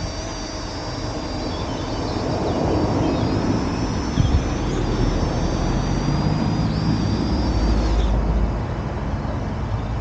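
Parrot Anafi quadcopter's motors and propellers whining in flight, several high steady tones wavering over a rushing noise. The whine stops about eight seconds in as the drone sets down.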